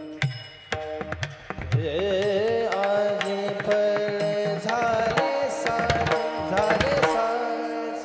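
Devotional kirtan music: a steady drone under sharp clashes of small bronze hand cymbals and drum strokes, and about two seconds in a singer's voice enters, holding long high notes with vibrato.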